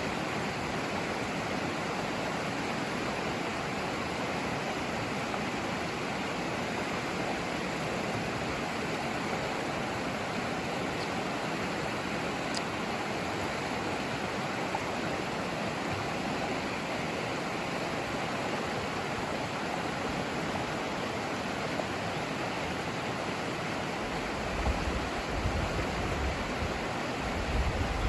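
River water rushing, a steady even noise with no change in pitch. A low rumble joins it in the last few seconds.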